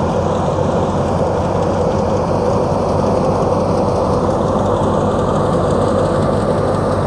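Tractor-driven wheat thresher running steadily under load as sheaves of wheat are fed into it: the tractor engine and the threshing drum make a loud, continuous machine noise with a low hum.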